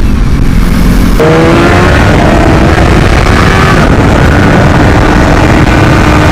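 Sport bike engine running hard, its pitch climbing slowly as the bike accelerates, under loud, steady wind rush. The engine note changes suddenly about a second in.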